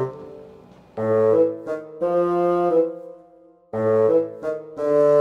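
Outro music: a melody played in short phrases of held notes, each dying away before the next begins about a second in and again near the end.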